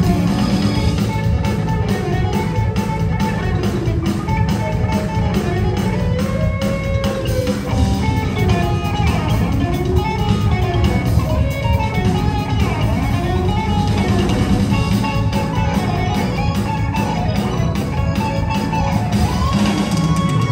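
Live jazz-fusion band playing: electric guitar melody lines over keyboards, bass and drum kit, continuous and loud.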